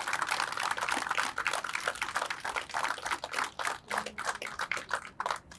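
A crowd applauding: many quick hand claps that thin out and stop near the end.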